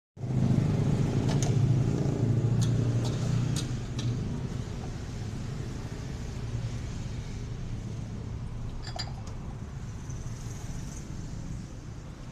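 Low rumble, loudest for the first four seconds, then a steadier hum, with a few sharp clinks of dishes or utensils.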